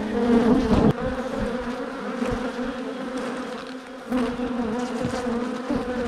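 Honeybees buzzing around an open hive, with single bees flying close past the microphone so the hum wavers up and down in pitch. The buzz gets louder about four seconds in.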